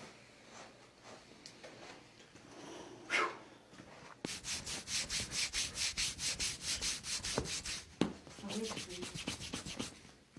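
Hands rubbing briskly back and forth over a body, a quick even run of about six or seven strokes a second lasting roughly four seconds. It trails off into slower, fainter rubbing. A soft whoosh sounds once about three seconds in.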